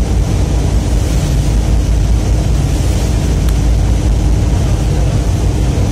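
A loud, steady low rumble with a fainter hiss above it, unchanging and with no distinct events.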